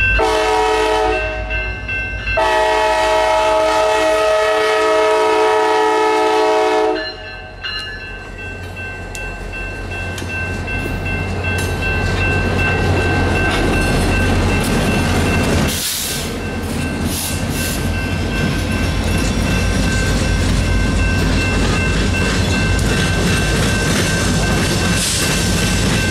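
CSX business train's F40PH locomotives sounding a chord horn twice, a short blast and then a long one of several seconds, as they reach the grade crossing. The locomotives and passenger cars then pass close by with a heavy diesel rumble and the clatter of wheels over the rails.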